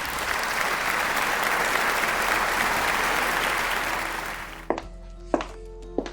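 Applause that swells and then fades out at about four and a half seconds, followed by music with sharp, regularly struck notes over held tones.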